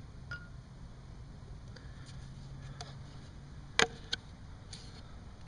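Scattered light clicks and taps from parts being handled at the motorcycle's oil fill, with one sharper knock about four seconds in, over a faint low hum.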